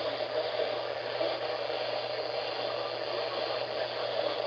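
Steady static hiss from a radio receiver tuned to a weak NOAA Weather Radio signal, with a low hum underneath; the station's audio is barely audible through the noise.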